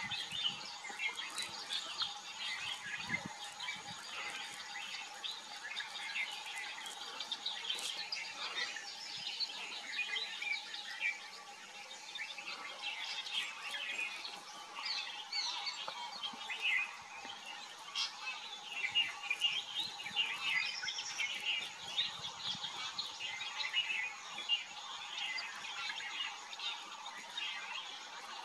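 Many birds chirping and calling at once: a dense, continuous chatter of short, high calls.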